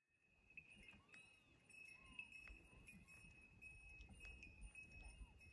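A small metal bell jingling faintly over and over, a steady high ring broken by many light tinks.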